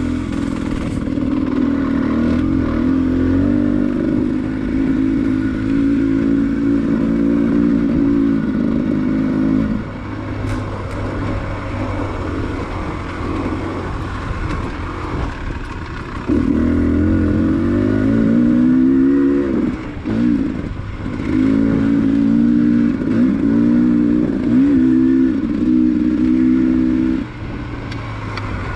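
Enduro dirt bike engine running as the bike is ridden. It holds a steady high pitch for the first ten seconds, runs lower and quieter for a while, then revs up and down repeatedly through the second half before easing off near the end.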